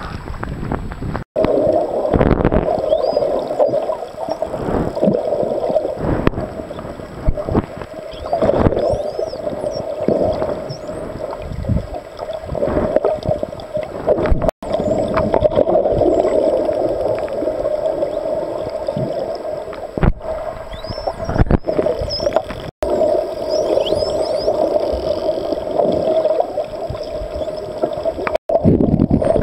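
Underwater sound from about a second in: a steady muffled water rumble with thuds and swishes from swimming movement. Faint short whistles rising in pitch come from dolphins, and the sound drops out completely four times for an instant.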